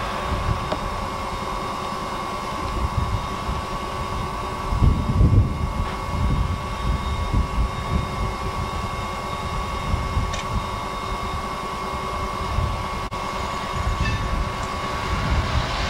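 Ex-Norfolk & Western 4-8-0 steam locomotive standing with its passenger train, getting ready to depart: a steady noise with uneven low rumbling that swells about five seconds in.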